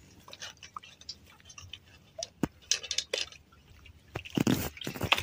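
Scattered light clicks and rustles of hands working a fishing net and line over rocks, with a louder rustle about four and a half seconds in.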